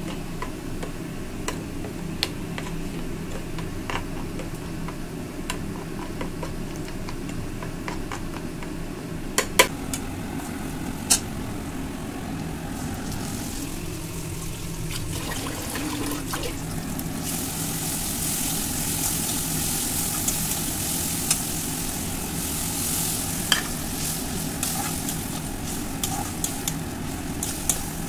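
A spoon clicks now and then against a bowl over a steady low hum. From about halfway on, chicken sizzles as it fries in a steel kadai and is stirred with a spatula.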